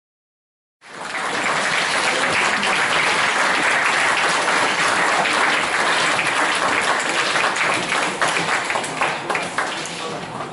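Audience applauding, starting abruptly about a second in and thinning out near the end.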